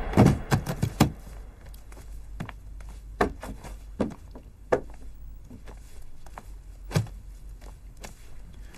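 A leather trunk being handled and packed: a quick run of knocks and thuds in the first second as it is set down and its lid opened, then single clunks and thumps about every second.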